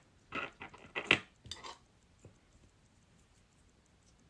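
A handful of light metallic clicks and taps in the first two seconds, from small metal tools and parts being handled on a mechanical watch movement.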